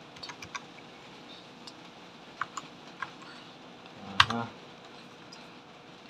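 Computer keyboard keys pressed one at a time, separate sharp clicks: a quick run of four or five in the first half-second, then single presses every second or so, the loudest about four seconds in.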